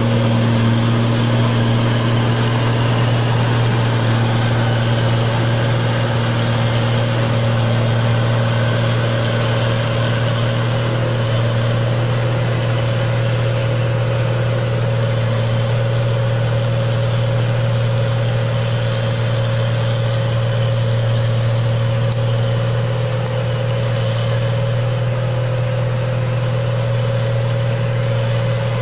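Engine of a rice (padi) machine running steadily at a constant speed, a loud, even low hum that does not change.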